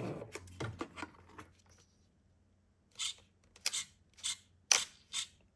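Small steering servo of an RC jet boat swinging the jet nozzle left and right in short buzzing bursts, about two a second, as the transmitter's steering is worked back and forth; a few light clicks come before it.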